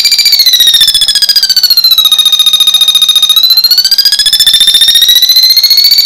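Buzzer of a homemade door-alarm circuit board sounding a loud, rapidly pulsing high-pitched beep while its pitch adjuster is turned with a screwdriver: the pitch slides down over the first two seconds, holds low for a moment, then rises back up.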